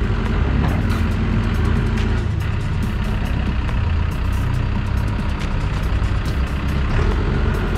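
Caterpillar 420E backhoe loader's diesel engine running steadily, its low hum changing pitch from about two seconds in until near the end as the machine works, with scattered sharp clicks over it.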